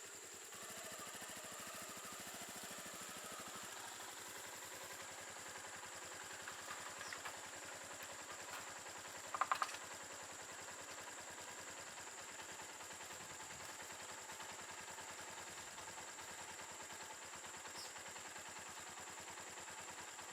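Yamaha Lander 250's single-cylinder four-stroke engine idling faintly and evenly, with a steady high insect-like whine throughout. About halfway through comes a brief, louder rattle of a few clicks.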